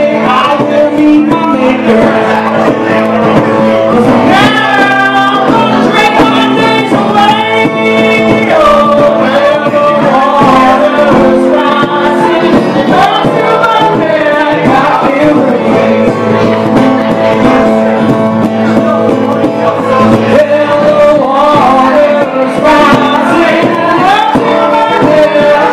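Live acoustic duo music: a woman singing over acoustic guitar accompaniment.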